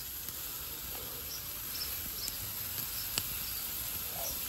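Steady high-pitched insect drone over a faint hiss of chicken sizzling on a charcoal grill, with one sharp click about three seconds in.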